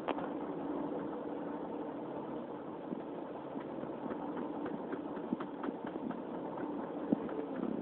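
Bus engine idling, heard from inside the passenger cabin as a steady hum, with faint scattered clicks and rattles.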